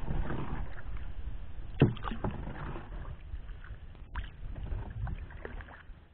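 Small wooden boat (xuồng) being paddled along a canal: a steady noise of water and movement, with a sharp knock about two seconds in and a few lighter knocks, fading toward the end.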